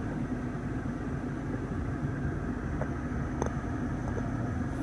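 Steady low hum of a running BMW 650i heard from inside its cabin, with two faint clicks, one about three and a half seconds in and one near the end.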